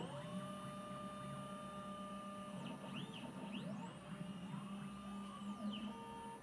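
Kavo OP 3D Pro dental X-ray unit's motorised rotating arm driving into its patient-entry position after the patient positioning button is pressed. A motor whine rises to a steady pitch, winds down about halfway through, then winds up and runs again before slowing near the end.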